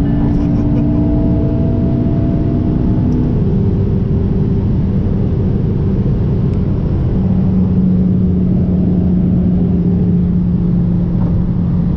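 McLaren 570S's twin-turbo V8 accelerating at around 240–265 km/h, heard from inside the cabin over heavy wind and road noise. About three seconds in, the engine note drops with the upshift from fifth to sixth gear, then holds steady.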